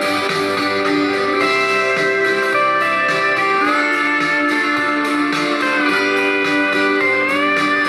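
Instrumental break in a country-folk song: steel guitar playing a melody of held notes that slide between pitches, over strummed guitar chords.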